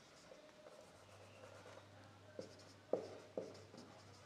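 Marker pen writing on a whiteboard, faint scratching and squeaking strokes, with a few sharper squeaks in the second half.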